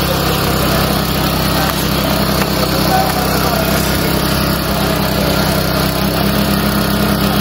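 A small engine running steadily at an even speed, with the voices of a crowd of workers mixed in.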